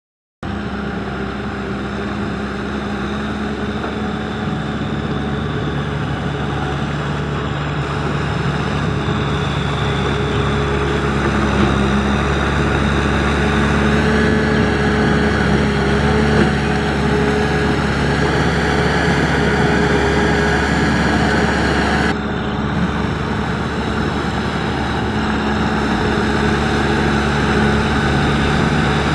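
Tractor diesel engine running steadily, its pitch shifting a little now and then, with an abrupt break about 22 seconds in.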